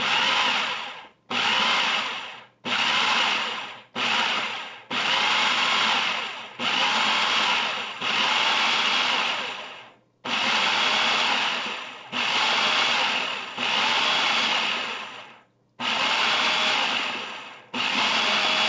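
Electric food processor pulsing in about a dozen short bursts, each starting abruptly and winding down as the motor stops, its blades chopping basil, walnuts and garlic into pesto while olive oil is drizzled in through the feed tube.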